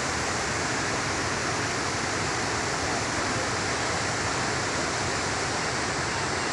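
Waterfall in spate after rain, water pouring heavily with a steady, even rush.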